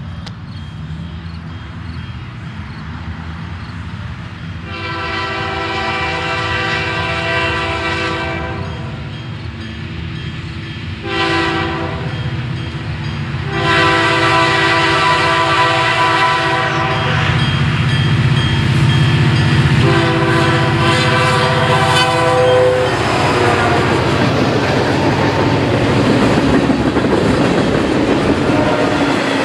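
A Canadian National EMD SD40-2W freight locomotive sounds its K3LA five-chime air horn in a run of blasts: one long, one short, then long blasts, the last cutting off about 23 seconds in. Its diesel engine runs underneath as it approaches and passes. After that the freight cars roll by with a steady clickety-clack of wheels on the rails.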